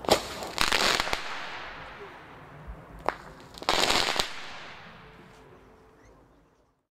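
Nico Lucky Eight crackling-ball firework (F2 consumer shell) fired twice: each shot is a sharp launch bang followed about half a second later by a dense burst of crackling, the first right at the start and the second about three seconds in, the crackle trailing off afterwards.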